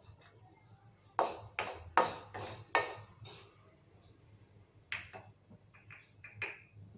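Split black urad dal poured into a dry kadai, the grains rattling against the pan in several quick pours about a second in. A few lighter clicks follow near the end.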